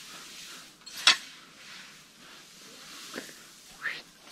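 Shovel scooping and throwing loose chopped straw: a sharp scrape about a second in, two smaller ones near the end, and a soft hiss of straw in between.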